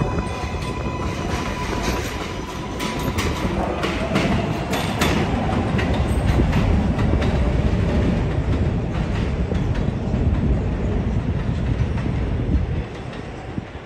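New York City subway 4 train running, its wheels clacking over rail joints in an irregular series of clicks over a steady rumble, with a thin steady tone in the first few seconds. The sound drops off about a second before the end.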